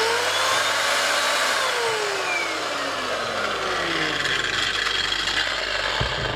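Parkside PWBS 180 A1 wall and floor sander's 1050 W motor running with its 180 mm sanding disc spinning free, restarting at its highest speed. The whine rises for about a second as it comes up to speed, then falls steadily for several seconds as the disc slows.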